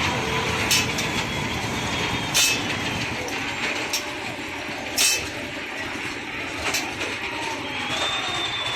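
Fairground kiddie toy train ride running on its track, with a sharp clack every second or two over a steady rumble.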